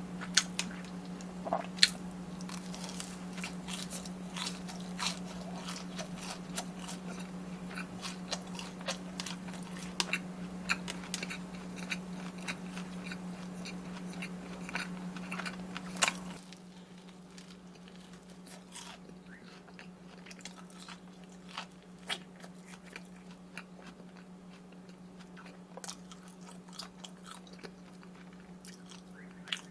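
Close-miked eating: crisp bites and crunching chewing of fried snack food, loudest and densest in the first half and softer, wetter chewing after about sixteen seconds. A steady low hum runs underneath.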